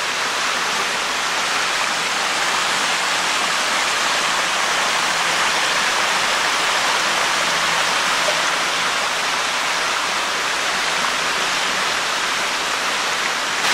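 Steady rushing of water from a small waterfall, an even hiss with no breaks.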